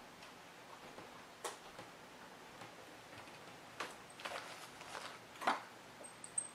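Faint scattered clicks and taps from hands and tools handling a dry fly at a fly-tying vise while dubbing is added to the head, the loudest a little past halfway, with a brief thin high squeak near the end.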